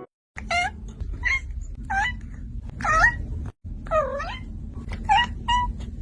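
A kitten meowing repeatedly in high, rising-and-falling cries, about seven in all, over a low rumble.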